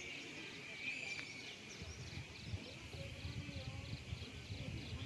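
Forest ambience: a steady high insect drone with rapid, evenly repeated chirps and a few bird calls, joined by a low irregular rumble from about two seconds in.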